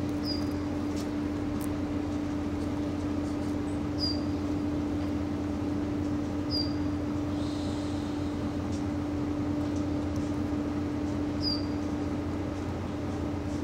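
Diesel locomotive idling: a steady hum with one strong held low tone. Short high chirps come about every two to five seconds, with a few faint clicks.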